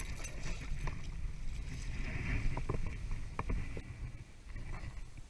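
Water splashing at a kayak's side as a hooked fish is netted, with scattered knocks against the hull and a steady low wind rumble on the microphone; it quietens after about four seconds.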